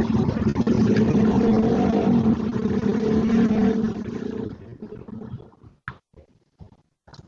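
A loud, steady motor drone with a low hum that fades away after about four seconds, followed by a few short clicks.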